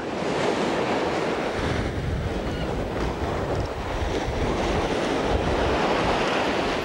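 Ocean surf breaking and washing up a sand beach, with wind buffeting the microphone.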